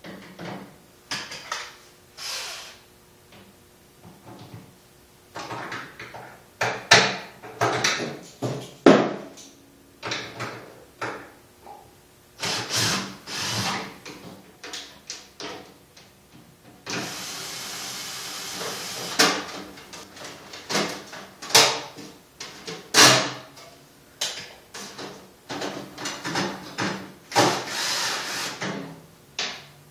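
Tools working screws, nuts and bolts out of a cyclekart's aluminium side cover: irregular clicks, clinks and scrapes, with one steady run of about two seconds just past the middle.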